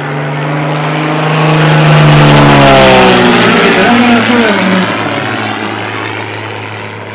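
Single-engine propeller aerobatic plane flying past at full power: the engine grows louder over the first two seconds or so, then its pitch falls as it passes and it fades away.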